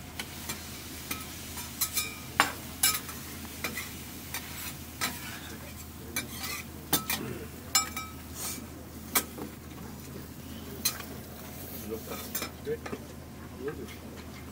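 Offal (liver) frying and sizzling on a hot plate, with frequent sharp metal clinks of a utensil stirring and turning it against the pan.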